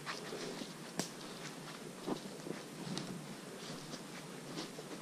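Footsteps on a grassy dirt trail: irregular soft steps and rustling, with a sharper click about a second in.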